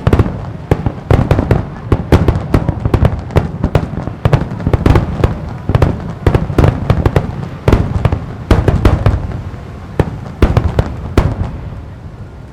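Star mine fireworks by Marugo: a rapid-fire barrage of shells bursting in quick succession, several sharp bangs a second with a rolling rumble under them. The bangs thin out near the end.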